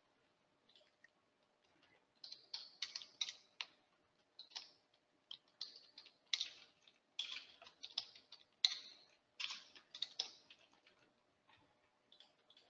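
Computer keyboard typing: irregular, faint keystrokes that start about two seconds in and run in quick clusters.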